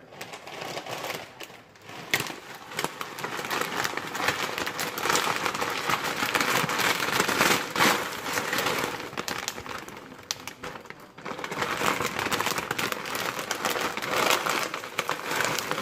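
Clear plastic bag crinkling and crackling as dry pancit canton noodles are tipped out of it into a wok, with a brief lull about ten seconds in.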